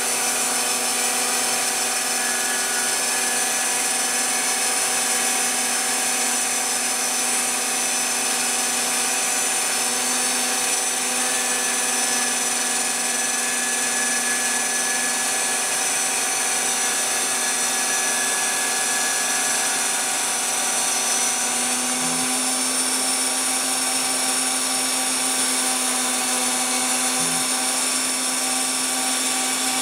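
Phlatprinter CNC router cutting a fibreglass sheet: the high-speed spindle runs with a steady whine of several held tones while the bit cuts through the fibreglass. One lower tone steps slightly higher about two-thirds of the way through.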